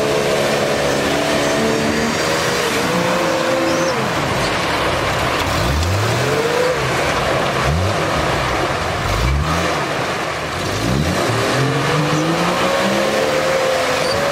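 Off-road 4x4 engine revving hard in bursts, its pitch rising and falling several times, over a constant loud rush of noise.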